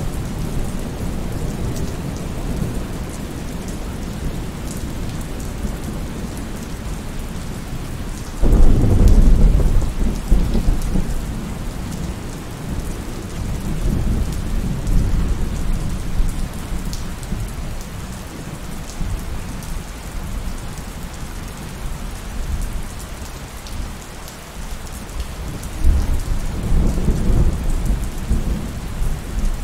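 Steady heavy rain with thunder. A sudden loud thunderclap a little over a quarter of the way in rumbles away over several seconds, and a second, lighter rumble of thunder comes near the end.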